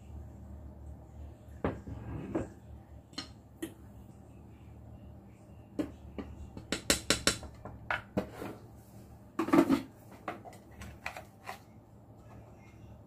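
Spoons clinking, knocking and scraping against a stainless steel mixing bowl of raw chicken pieces, in scattered irregular strikes. A quick run of clicks comes about seven seconds in, and the loudest knock comes near ten seconds.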